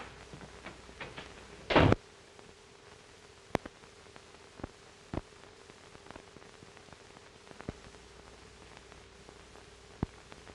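A door shutting once, sharply, about two seconds in, followed by a few scattered faint clicks over the steady hiss and hum of a 1930s film soundtrack.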